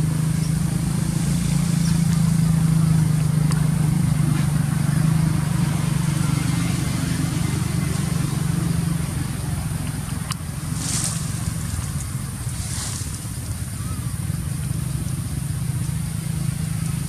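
Motor vehicle engine running steadily, a low hum that eases off for a few seconds past the middle and then returns, with two brief high hissing sounds near the middle.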